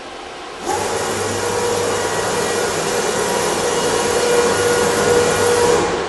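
ACM Sharp CNC router's gantry traversing at rapid speed in a dry run with no cutting: the axis drives whir with a steady whine. The sound starts suddenly about a second in and drops off just before the end as the move finishes.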